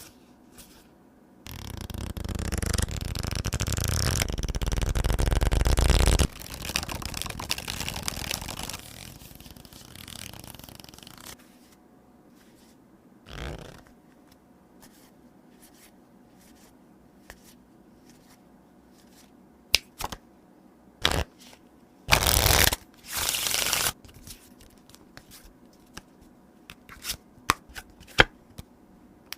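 A deck of TCC Zodiac playing cards being shuffled and handled. A long rustle of cards grows louder for about five seconds, then fades off. Later come a few sharp taps and clicks and two short, loud shuffles one after the other.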